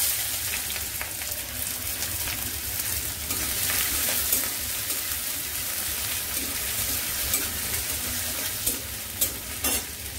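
Chopped onion sizzling in hot oil with fried garlic in a kadai (wok), the sizzle starting suddenly as the onion goes in and holding steady while it is stirred with a spatula. A few sharp scrapes of the spatula against the pan near the end.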